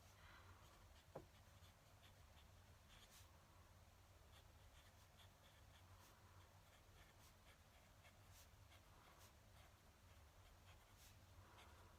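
Fountain pen nib scratching faintly on paper in short, quick strokes, over a steady low hum. About a second in, one brief squeak falls in pitch.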